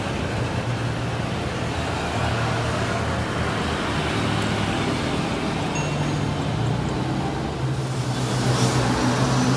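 Jet airliner engines running at taxi power: a steady rushing roar with a low hum. It changes near the end, gaining more high hiss as a different jet rolls by.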